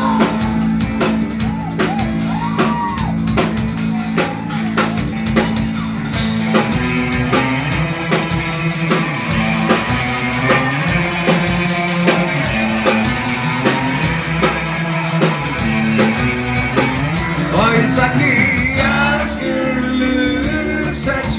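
Live rock band playing: electric guitar over bass and a steady drum-kit beat.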